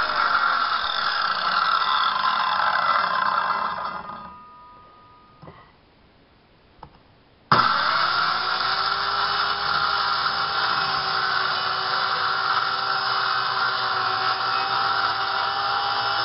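Corded circular saw cutting plywood, its motor whining steadily, then released about four seconds in and winding down. After a pause with two light knocks it starts again with a sudden burst about seven and a half seconds in, its whine rising to speed and running steady as it cuts on.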